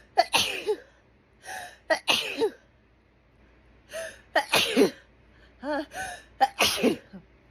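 A woman sneezing over and over in a hay fever fit: about four loud sneezes, with voiced gasping in-breaths between them.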